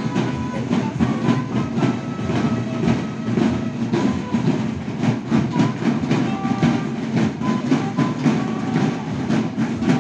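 A marching band's field drums playing a fast, steady cadence, with many drums striking together in a dense rhythm.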